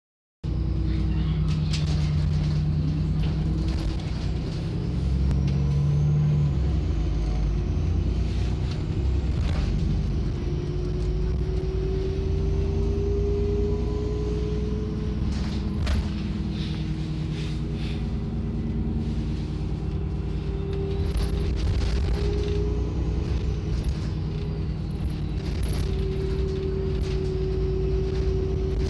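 Euro 3 Alexander ALX400 Trident double-decker bus heard on board from the upper deck while it drives. Its engine and drivetrain give a steady low rumble, with a humming tone that rises and holds twice, and scattered rattles and clicks from the body.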